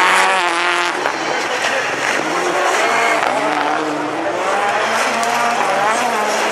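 Several rallycross Supercars racing past, their turbocharged engines revving up and down through gear changes, with some tire squeal.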